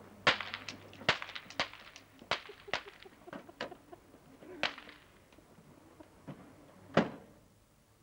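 Hard footsteps crunching on packed snow, a quick run of sharp steps over the first five seconds. About seven seconds in a car door slams shut, the loudest sound here.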